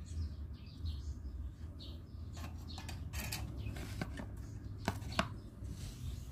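Light clicks and taps of a small amplifier circuit board and its wires being handled, turned over and set down on a wooden bench, over a steady low hum. Two sharper clicks come about five seconds in.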